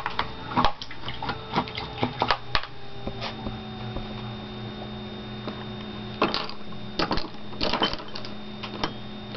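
Paintbrush handles clicking and knocking against one another and the table as brushes are put down and picked up, in irregular bunches of sharp taps over a steady low hum.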